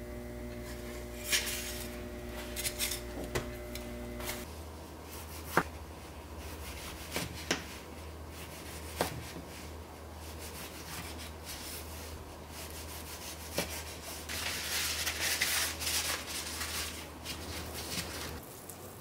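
Kitchen food-preparation sounds: scattered sharp clicks and taps of utensils on kitchenware, then a few seconds of scraping and rubbing about three-quarters of the way through, over a low steady hum.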